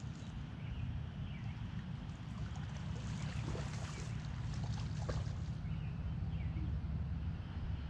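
Water splashing and sloshing at a river's edge as a person works at the waterline, busiest in the middle of the stretch, over a steady low rumble.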